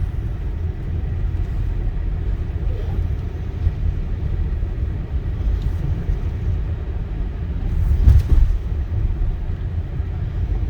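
Steady low rumble of a car driving on snowy, icy roads, heard from inside the cabin, with a brief louder jolt about eight seconds in.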